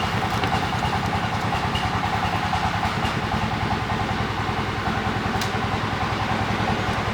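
A motor running steadily, with a fast, even low throb.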